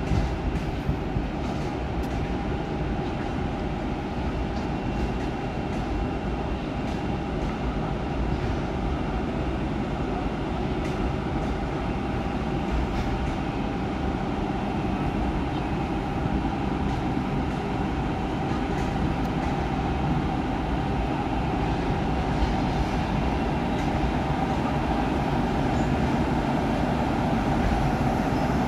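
ChS7 electric locomotive pulling a passenger train out at low speed: a steady electric hum with a whine, growing gradually louder as it approaches, with a few light clicks from the wheels.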